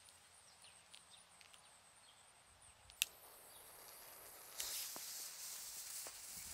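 A single sharp click of a stick lighter, then from about two-thirds of the way in a faint steady hiss as the fuse of a small spinning-fireball ground-spinner firework burns down.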